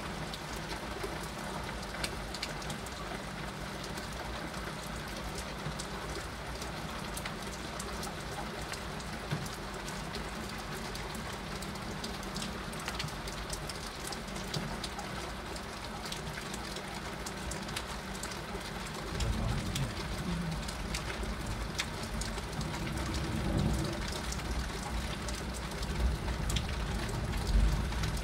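Heavy rain pouring steadily, with scattered sharp ticks of drops striking close by. About two-thirds of the way through, a low rumble joins the rain and swells several times.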